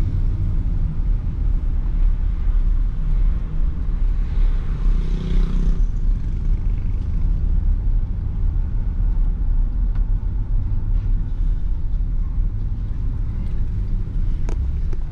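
Steady low rumble of a car's engine and tyres heard from inside the moving car's cabin, with a swell of louder noise about four to six seconds in and a brief click near the end.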